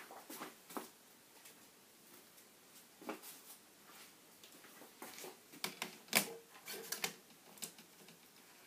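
Faint, scattered clicks and taps of plastic laptop parts being handled while a replacement screen is fitted to an Acer Aspire 5542, growing busier after about five seconds with the loudest click near six seconds.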